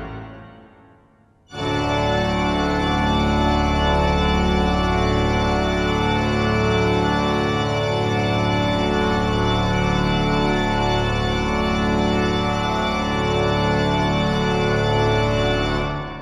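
Rushworth and Dreaper pipe organ, full organ: a chord released, its echo dying away in the church for about a second and a half, then a long closing chord over a deep pedal note, inner parts moving, held for about fourteen seconds before it is released near the end and rings away.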